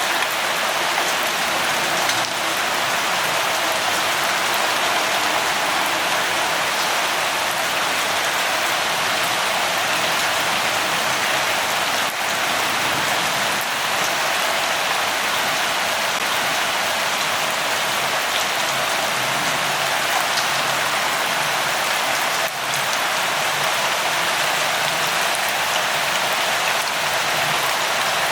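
Steady light rain falling and pattering, an even hiss with faint scattered drop ticks.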